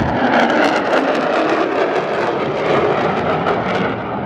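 Lockheed Martin F-35A's F135 turbofan engine heard from the ground as the jet flies its display: a loud, rough rushing noise, strongest in the middle and upper range with little deep rumble.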